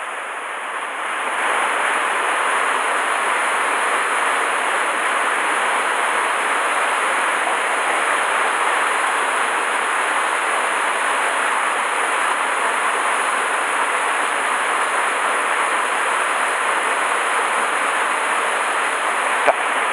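Mountain stream rushing over rocks and small cascades: a steady, even rush of water, with one sharp click near the end.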